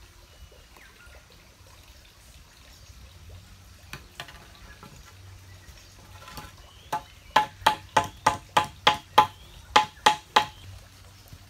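A hand hammer striking about a dozen times in quick succession, roughly three blows a second, each blow with a short ringing note. The blows start about seven seconds in and stop shortly before the end.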